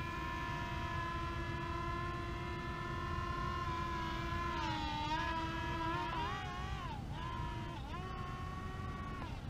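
Electric motors and propellers of a small foam RC C-17 model plane whining in flight, steady at first, then dipping, wavering up and down and rising again from about halfway through as the throttle is worked, over a low rumble.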